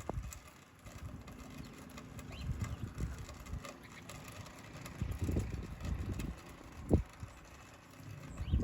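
A few faint, short rising bird chirps over irregular low rumbling bursts, with one sharp thump about seven seconds in.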